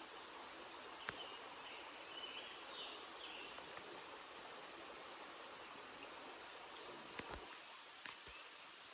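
Faint steady rush of a small creek's flowing water, with a few light clicks or taps: one about a second in and a cluster of three near the end.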